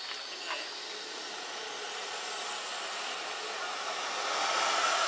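Small turbine engine of a model jet whining as it rolls along the runway, with a thin high whistle that glides up and down in pitch. It grows louder about four seconds in.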